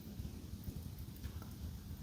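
Wood fire crackling in a fireplace: a dense low rumble of flame with a couple of faint sharp pops about a second in.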